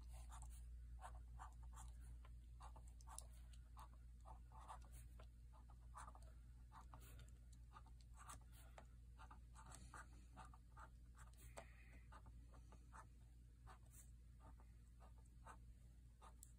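Faint felt-tip Flair pen strokes on paper: many short, irregular scratches of hand lettering.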